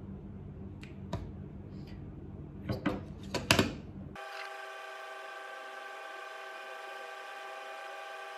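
Several light clicks and taps of cosmetic containers being handled, a cluster of sharper clicks the loudest, about three and a half seconds in. About four seconds in the sound changes abruptly to a steady hum of several even tones.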